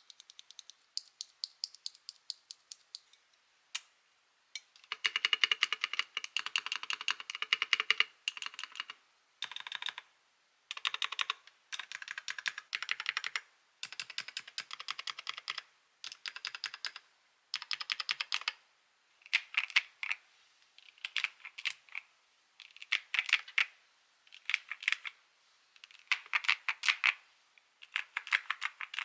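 Aula F98 mechanical keyboard being typed on in fast bursts of keystrokes with short pauses between them. The first few seconds are lighter, sparser key presses; from about five seconds in the typing is louder and denser.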